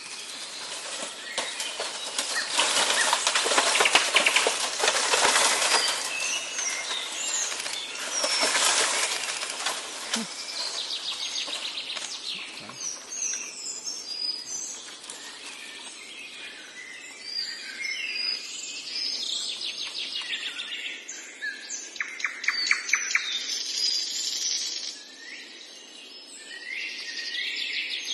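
An elephant feeding on bamboo: leaves rustling and stems crackling, loudest in the first ten seconds. Birds chirp throughout, most clearly in the second half.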